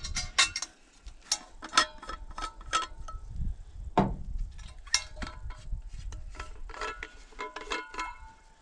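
Repeated light metallic clinks and knocks, some with a short ring: a small metal camping-cookset pot being handled.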